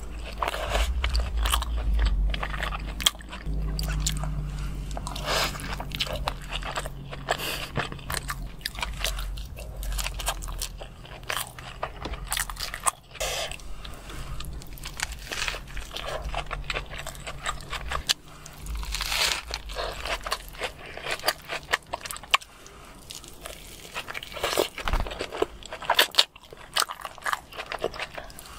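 Close-miked eating: a person biting into and chewing a burger, with many sharp mouth clicks and crunches.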